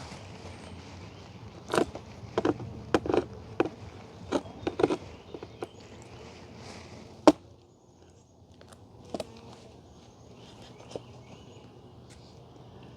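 Honey bees humming around an open hive, with a run of sharp clicks and knocks from the hive being worked between about two and five seconds in, and one loud click about seven seconds in.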